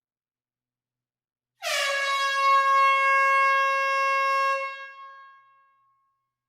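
Air horn sounding one long blast of about three seconds in an enclosed hall, starting about a second and a half in with a slight dip in pitch at the onset, then fading out over about a second in the hall's reverberation.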